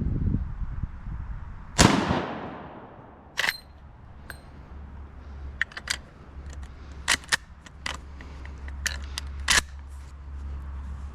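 A single shot from a Marlin 1895 lever-action rifle in .45-70 Government about two seconds in, with a long fading echo. It is followed by a run of short, sharp metallic clicks and clacks, typical of the lever being worked and the action handled.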